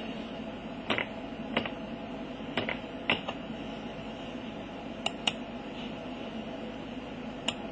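Several sharp clicks at uneven intervals, like keys or buttons being pressed, over a steady low electrical hum.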